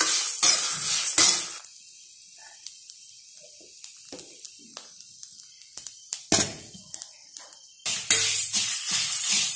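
Metal ladle scraping and stirring dry coriander seeds and red chillies around a metal kadai, in quick strokes for the first second and a half and again near the end. In between, a quieter stretch with faint scattered ticks and one brief clatter.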